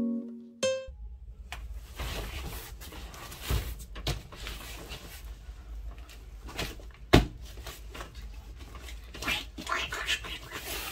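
Handling noise from a plastic-taped cardboard parcel: scraping and rustling as it is turned over, with a few sharp knocks, the loudest about seven seconds in. Near the end comes the scrape of a box cutter working at the packing tape.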